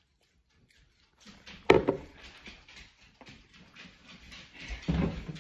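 A drinking glass set down on a kitchen counter with one sharp knock, followed by scuffing, clattering and thuds of someone moving about, with a heavier thump near the end.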